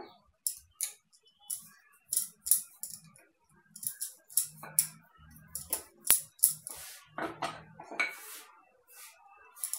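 Irregular clicks and taps from rolling out puri dough with a wooden rolling pin on a countertop.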